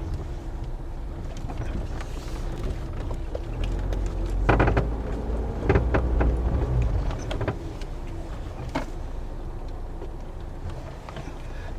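A 2009 Toyota Corolla being driven, with a steady low rumble and a few sharp knocks, the strongest about four and a half seconds in. The owner suspects these clunks come from a worn outer tie rod or ball joint.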